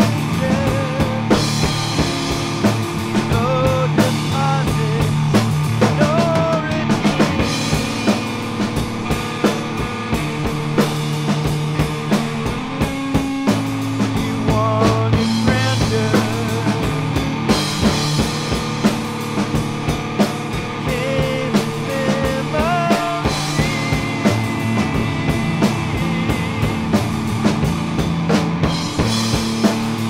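Rock music: a band with drum kit and guitars playing a steady beat.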